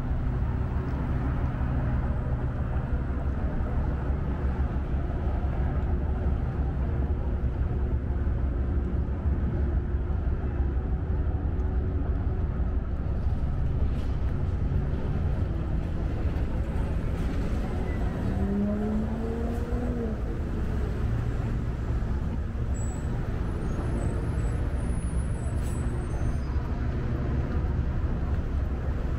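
City street traffic: a steady low rumble of cars and other vehicles on a busy avenue. About two-thirds of the way through, a short pitched sound rises and then falls over the traffic.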